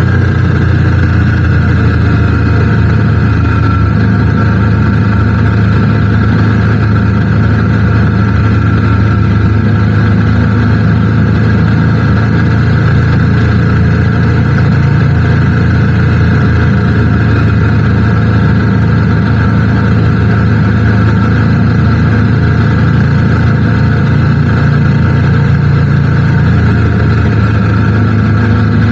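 Motorcycle engine running at a steady cruising speed, its pitch holding level, under a constant rush of wind and road noise.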